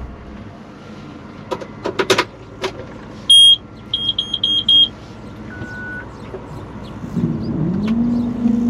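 A loud, high electronic beep followed by a quick run of about five short beeps, like a vehicle's warning alarm, after a few sharp clicks. Near the end, an engine or motor hum rises in pitch and then holds steady.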